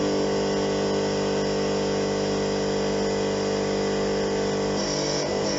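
Hydraulic power unit running: the motor-driven positive-displacement pump gives a steady hum and whine made of several steady tones. The tone shifts slightly about five seconds in.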